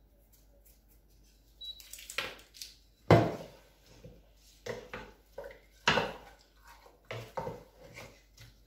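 Wooden spoon stirring pieces of mackerel in a stainless steel pot, knocking against the pot in irregular clacks, the loudest about three seconds in.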